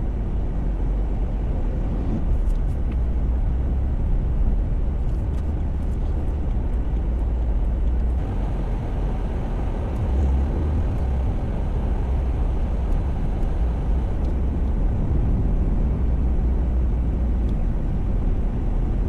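Steady low road rumble of a car driving, with faint ticks here and there.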